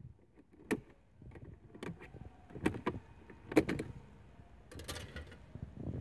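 A small screwdriver prying a plastic dashboard trim cover loose: scattered sharp plastic clicks and snaps, about five, with faint scraping of plastic between them.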